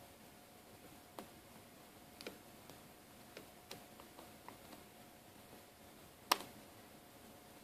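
Faint, scattered light clicks and taps from handling small phone parts and a tool as a taped-down circuit board is peeled off a Samsung Galaxy S3's frame, with one sharper click about six seconds in.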